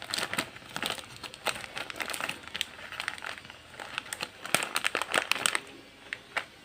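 Plastic snack packet crinkling as it is handled, in a run of irregular crackles that thins out near the end.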